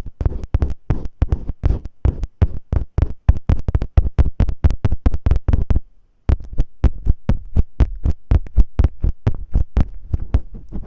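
Quick, rhythmic scratching strokes on masking tape over the microphone, ear-cleaning-style ASMR, about five strokes a second with dull thuds, pausing briefly about six seconds in.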